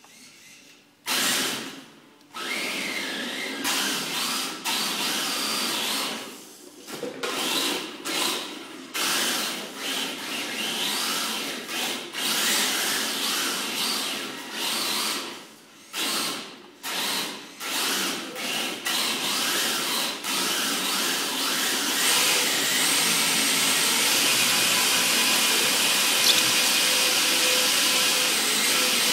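Tamiya TB02D electric RC touring car drifting on a marble floor, its motor and drivetrain whining in spurts as the throttle goes on and off, with brief pauses. Over the last several seconds it runs steadily.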